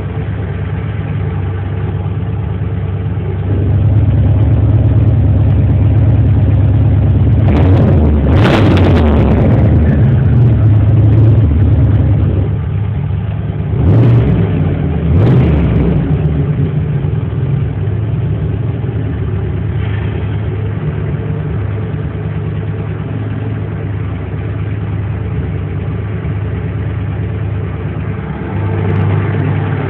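Turbocharged 5.0-litre V8 running, heard from inside the car's cabin. It is louder for several seconds near the start, as if held above idle, with a few short sharp noises in the middle, then settles to a steady idle.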